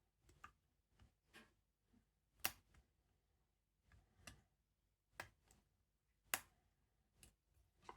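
Faint, scattered clicks and ticks of a lock pick and tension wrench working the pins of a Chubb pin-tumbler cylinder, at irregular intervals, with two sharper clicks, one about a third of the way in and one a little past three quarters.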